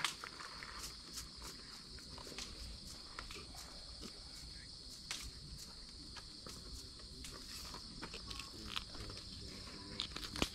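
Steady chorus of crickets or similar insects, an even high-pitched buzz, with scattered light clicks and knocks.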